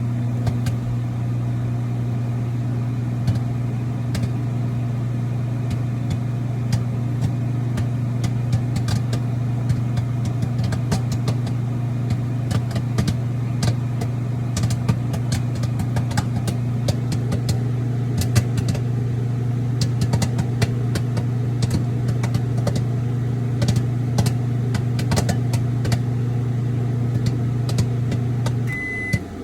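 Microwave oven running with a steady hum while a bag of popcorn pops inside: a few scattered pops at first, then frequent popping from several seconds in. Near the end the hum stops and the oven begins to beep, signalling that the cooking cycle is done.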